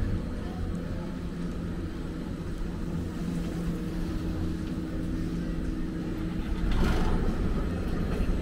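Detachable gondola lift running: a steady mechanical hum from the line and station machinery, with a brief louder rush about seven seconds in as a cabin approaches the station.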